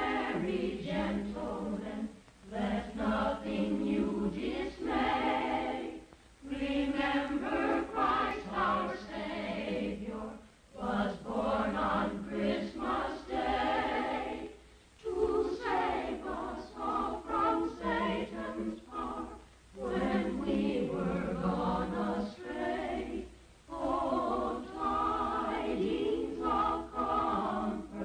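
A choir singing in phrases of a few seconds each, with short breaks between them, over a steady low hum.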